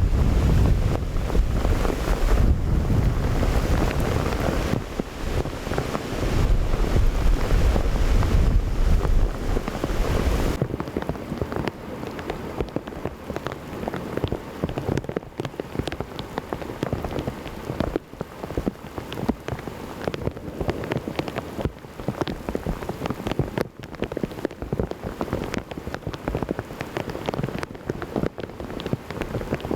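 Heavy rain in a severe storm, over a deep low rumble for about the first ten seconds. Then it cuts suddenly to steady rain with single drops ticking.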